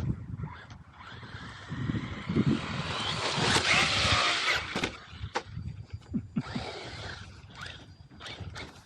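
MT8 RC monster truck driving over dirt: its motor whines up and down with hissing tyre and dirt noise, loudest about halfway through, followed by several sharp knocks as the truck bounces and lands.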